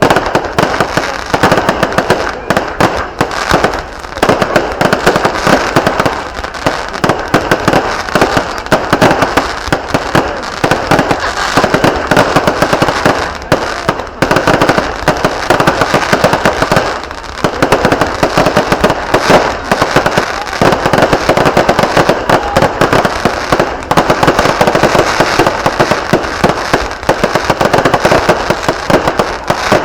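Loud, continuous barrage of fireworks and firecrackers going off in rapid, densely packed crackles and bangs, easing briefly a few times before picking up again.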